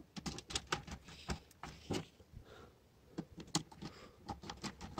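Quiet, irregular clicks and small scrapes of a screwdriver working the terminal screws of a DIN-rail main switch on a distribution board.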